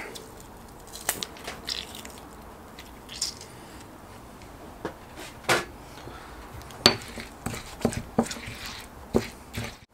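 Stone pestle knocking and scraping against a granite mortar while stirring a wet spice paste. It makes a scatter of sharp clicks, a few at first and more frequent in the second half.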